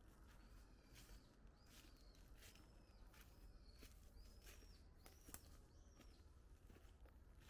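Faint footsteps crunching through dry fallen leaves at a walking pace of about two steps a second, with a bird calling in short, repeated chirps.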